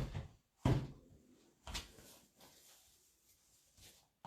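Objects being moved and set down on a work table: three sharp knocks and bumps in the first two seconds, then a few fainter taps.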